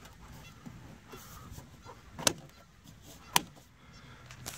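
Two sharp plastic clicks about a second apart: a car's pillar trim panel being pressed and snapped into place on its clips.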